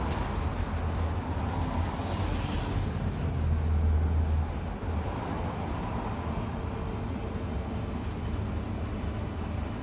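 Bus travelling: a steady low engine and road rumble that swells briefly about three to four seconds in, then settles again.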